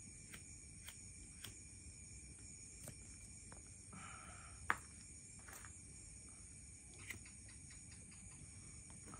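Crickets trill steadily in the background. A cigarette lighter is struck several times, making a few sharp clicks; the loudest, about halfway through, comes just after a short hiss.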